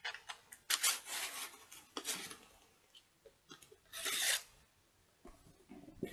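Yellow utility knife cutting open a cardboard shipping box: a few short scraping strokes through the cardboard, the longest about a second in and another about four seconds in, with small clicks and rustles between.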